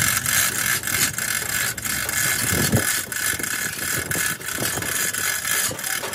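Manual chain hoist being hauled hand over hand to lift a truck gearbox, its chain rattling through the block with irregular ratchet clicks. A dull knock about two and a half seconds in.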